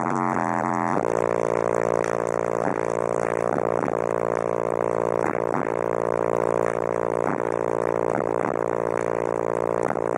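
Bass-heavy music played loud through two DC Audio XL 18-inch subwoofers, heard inside the car's cabin as a buzzing drone that shifts in pitch. A deeper bass note comes in about a second in.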